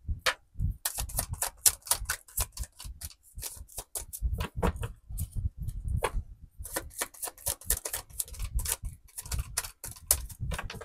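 A deck of tarot cards being shuffled by hand: quick runs of crisp card clicks and flicks, broken by brief pauses every few seconds.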